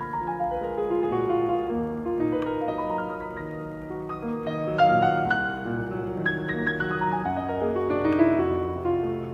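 Background piano music: a melody of held notes over a steady lower accompaniment.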